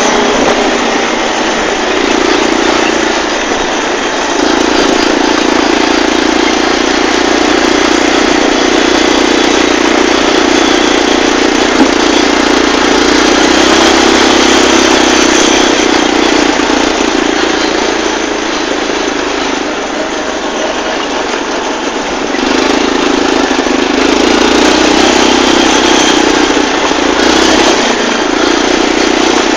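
Linhai ATV's single-cylinder four-stroke engine running loud and steady, heard from on board while the quad is ridden, with the engine note easing off briefly a few seconds in and again about two-thirds of the way through.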